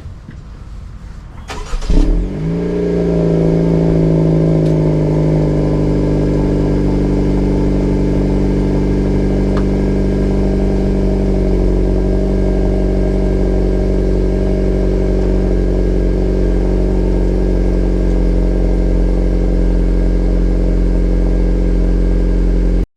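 Fifth-generation Acura Integra's 1.5-litre turbocharged four-cylinder starting up: a brief rev flare as it catches, then settling into a steady idle.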